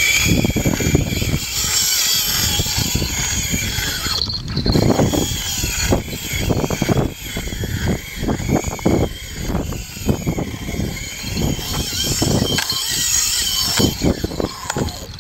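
Daiwa Saltiga 6000GT reel's drag buzzing steadily as a big bluefin tuna pulls line off, with wind gusts and handling knocks on the microphone.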